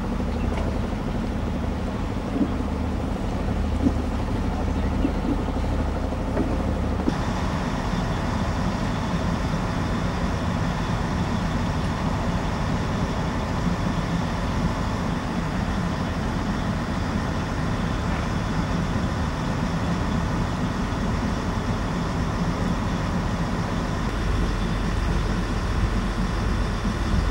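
Boat engine running steadily: a constant low drone with a haze of noise over it, changing abruptly in tone about seven seconds in.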